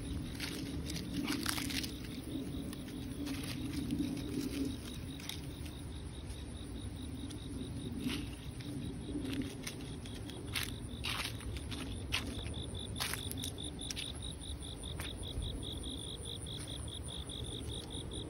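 An insect, cricket-like, chirping in fast, even pulses that become clearer in the second half, with scattered light crackles of dry leaves being stepped on.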